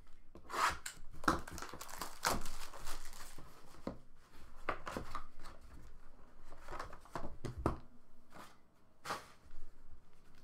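Plastic shrink-wrap and packaging of a trading-card hobby box being torn and crinkled open: a run of irregular rips and rustles, with the cardboard box and foam insert handled.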